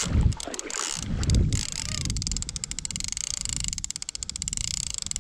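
Spinning fishing reel being cranked under load, reeling in a hooked bull shark: a fast, even clicking from about two seconds in. Two low thuds in the first second and a half.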